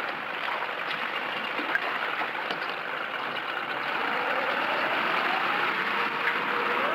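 Boat motor running steadily, then rising in pitch and loudness about four seconds in as the boat takes up the tow line to pull the grounded boat off the sand.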